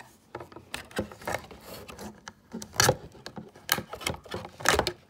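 Scissors and hands working at a thin plastic tie that fastens a plastic model horse into its box packaging: an irregular run of small clicks, snips and knocks with light rustling between them, loudest about three seconds in and again near the end.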